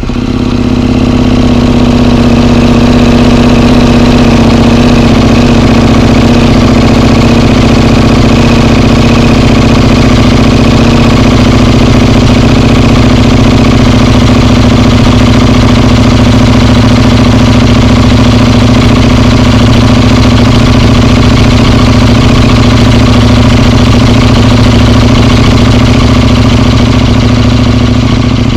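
KTM 1290 Super Duke R's V-twin engine idling steadily through an IXIL RC slip-on exhaust.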